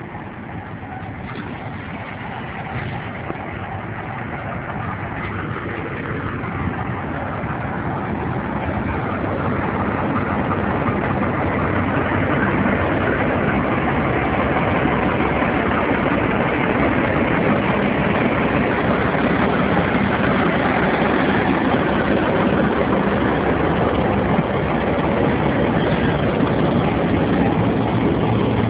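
Diesel locomotive's engine running with a low, heavy drone. It grows louder over the first dozen seconds as it comes close, then holds steady.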